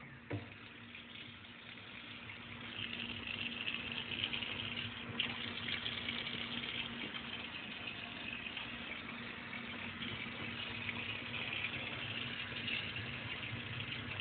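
Water running from a pull-down kitchen faucet into a stainless steel sink: a steady stream that starts with a click just as it is turned on, grows louder over the first few seconds and stops at the very end.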